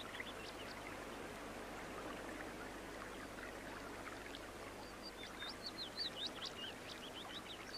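Stream running steadily, with a few high bird chirps at the start and a rapid run of short high chirps from about five seconds in.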